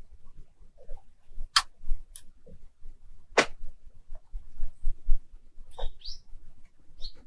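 Frozen lake ice cracking and creaking: two sharp cracks about a second and a half and three and a half seconds in, scattered small ticks, then short rising chirps near the end.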